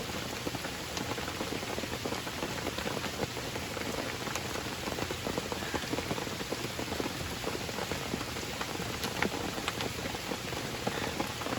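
Steady rain falling, a continuous hiss with scattered individual drops ticking close by.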